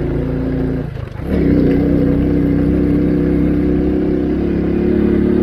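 Motorcycle engine running steadily while riding; about a second in it briefly drops away, then picks up again and holds steady, louder than before.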